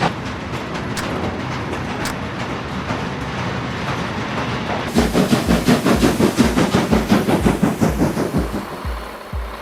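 A train running along the track with a steady rumble and the odd knock. About halfway through, an even rhythmic thumping of about two beats a second sets in.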